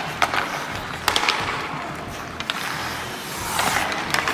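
Ice hockey skate blades scraping and carving on the rink ice, with several sharp clacks of sticks and pucks in the first half and a longer hissing scrape near the end.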